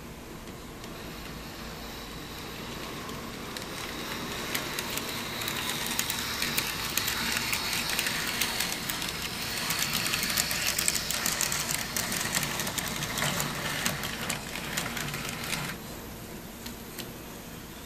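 N-scale model tram running on its track: a small electric motor whine with many sharp clicks from the wheels on the rails. It grows louder from about four seconds in, is loudest around the middle, and drops away suddenly near the end.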